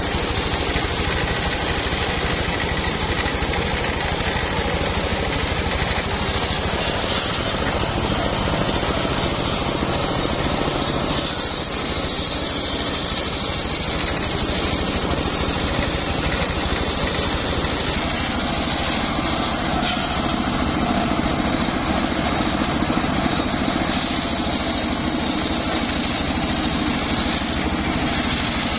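Large circular sawmill blade ripping lengthwise through a mahogany beam, the machine running steadily under the cut. The tone of the cutting noise shifts about a third of the way in and again past halfway.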